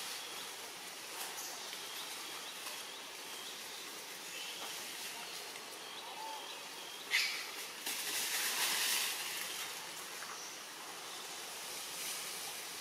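Outdoor forest ambience with a steady high hiss, a sharp click about seven seconds in, and a louder rustling burst for a couple of seconds after it, as macaques move over dry leaves on a concrete ledge.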